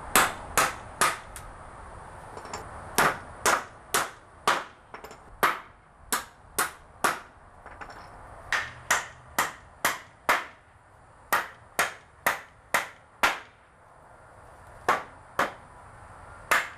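Claw hammer driving nails into 2x4 studs and spacer blocks. It lands runs of sharp blows, about two to three a second, with pauses of a second or two between nails.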